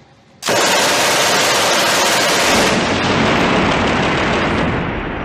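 MG42 machine gun firing a long burst of 8mm Mauser rounds, starting abruptly about half a second in. The rate of fire is so fast that the shots run together into one continuous tearing rip, which eases off toward the end.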